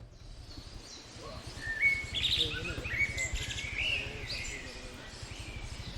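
Forest birds chirping and calling, several short whistled notes and trills that are busiest from about a second and a half to four seconds in, over a steady low rumble.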